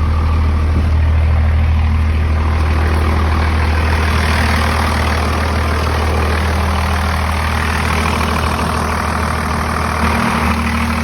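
Dodge W250's Cummins inline-six turbo diesel idling steadily with the air conditioning on max while its R12 system is charged. Its note shifts slightly about ten seconds in.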